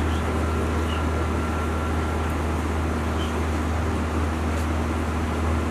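A steady low mechanical hum under a constant hiss, with a faint steady tone above it.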